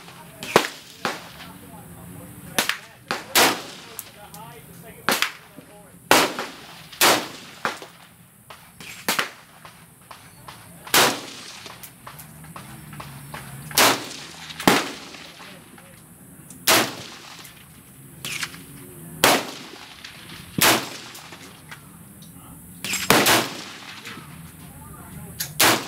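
Semi-automatic rifle fire from a 20-inch M16 upper on an AR-15 lower, in 5.56 mm: about twenty single shots at an uneven pace, each a sharp crack with a short echo.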